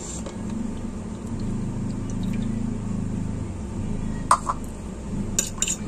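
Evaporated milk being poured into a ceramic mixing bowl, over a steady low hum. There is a sharp click about four seconds in and a few more clicks near the end.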